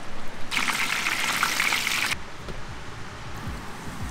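Hot oil sizzling and crackling, like chicken deep-frying, for about a second and a half before cutting off abruptly; then a quieter low rumble.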